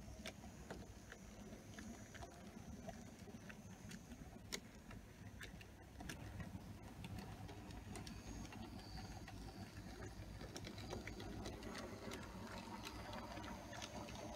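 Model railway train running on the layout's track: a faint steady small-motor rumble with irregular clicking of wheels on the rails, getting a little louder about six seconds in.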